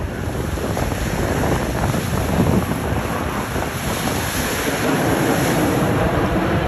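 Wind buffeting the microphone over breaking surf, mixed with the distant jet roar of a five-ship formation of Blue Angels F/A-18 Super Hornets, slowly growing louder.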